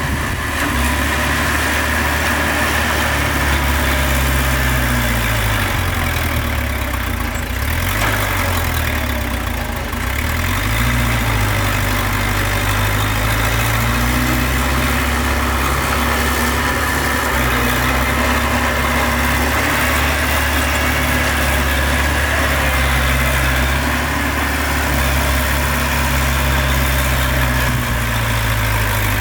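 Heavy diesel engines of dump trucks and a bulldozer running, mostly idling, with the engine speed dipping and rising a few times.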